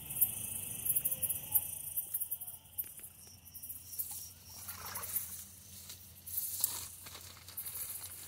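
Hands rustling through tall grass and weeds, in short bursts about four and a half and six and a half seconds in, over a faint, steady, high hiss of night insects.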